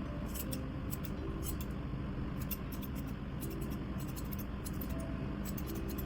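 Grooming scissors snipping through a dog's fur in quick, irregular clicks.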